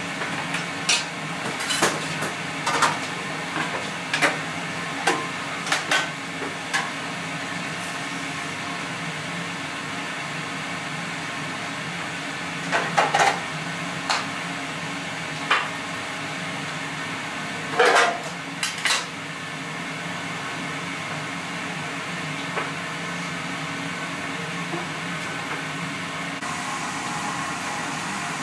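Kitchen clatter: a dozen or so sharp knocks and clinks of utensils, dishes and pans in the first twenty seconds over a steady kitchen hum, after which only the hum goes on.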